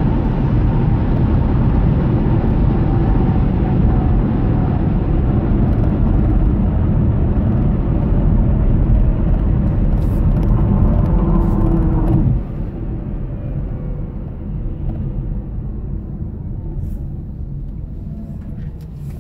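Road and tyre noise of a Hyundai Kona Electric heard inside the cabin while driving, a dense low rushing with no engine note. It drops noticeably about twelve seconds in as the car comes off the elevated road toward an intersection.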